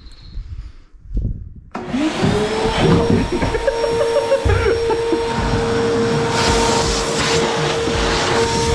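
DeWalt wet/dry shop vacuum switched on about two seconds in. Its motor spins up with a rising whine, then runs steadily, a constant high whine with rushing air as it sucks up debris.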